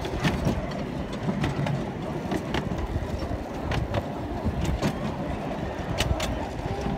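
Small park ride train's open carriages rolling along the track: a steady low rumble with irregular clicks and knocks.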